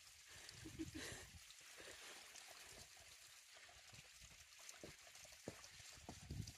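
Faint trickle of water running down a wet rock face, with a few soft low thumps.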